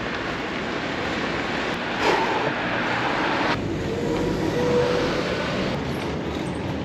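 Street traffic: a steady rush of passing vehicles, louder for a moment about two seconds in, with a faint whine from a vehicle about four seconds in.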